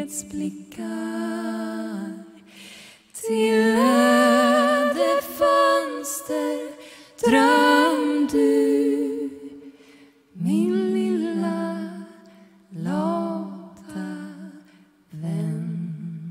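Two women's voices singing a wordless melody in harmony without accompaniment, in about six held phrases separated by short breaths.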